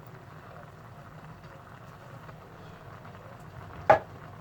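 A pot of vegetables in coconut milk simmering on the stove with a steady low bubbling hiss, and one sharp knock against the pot near the end.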